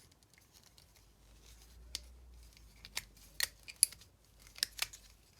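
Handheld puzzle pieces clicking as the puzzle is turned and worked: about seven sharp, separate clicks, clustered past the middle.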